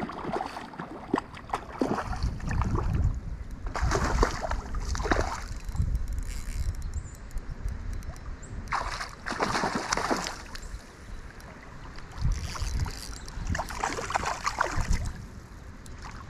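Water splashing and sloshing in several bursts, each about a second long and a few seconds apart, over a low steady rumble.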